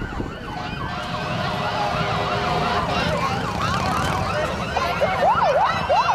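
Several police and emergency-vehicle sirens wailing and yelping at once, overlapping, with a quicker, louder yelp near the end, over a low rumble of motorcycle engines.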